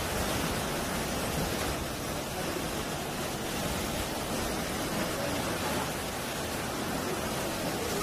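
Sea waves washing over and breaking among shoreline rocks: a steady rush of surf and foaming water.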